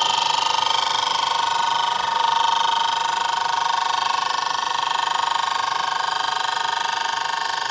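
Milling machine with a fly cutter taking a cut across the top of a wooden board clamped in its vise: a loud, steady, high-pitched whine.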